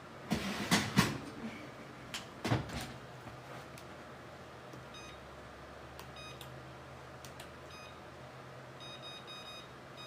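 A few knocks and a clatter in the first three seconds. Then a low steady hum, with several runs of short electronic beeps from the oven's control panel as its timer is set.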